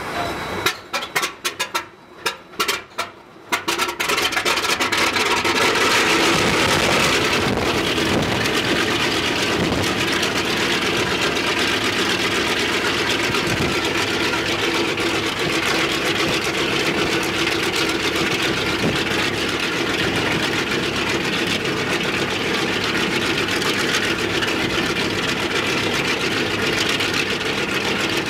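Left Shvetsov ASh-82T radial piston engine of an Ilyushin Il-14T airliner firing in a few uneven bursts as it catches, then running steadily from about four seconds in.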